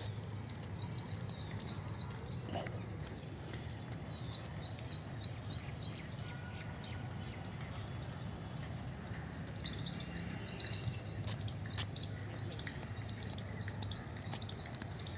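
Birds chirping in quick runs of short, high notes, several times over, with a steady low rumble of outdoor background noise underneath.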